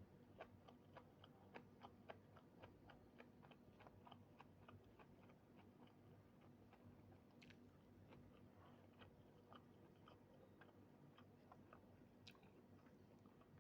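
Faint close-up chewing, with quick wet mouth clicks about four a second for the first half, then slower and more scattered.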